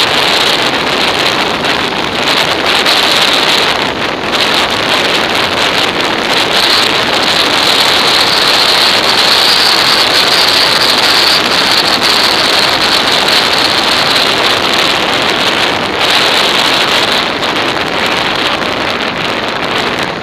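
Steady rush of wind buffeting an action camera's microphone on a moving motorcycle, with road noise underneath and no clear engine note; it eases slightly near the end.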